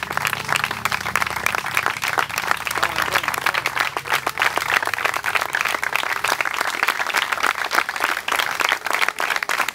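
A small crowd applauding, many hands clapping at once in a dense, steady patter.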